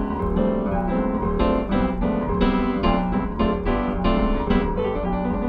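Keyboard piano playing an instrumental break in a rock-and-roll blues, chords struck repeatedly about three times a second over a steady bass line.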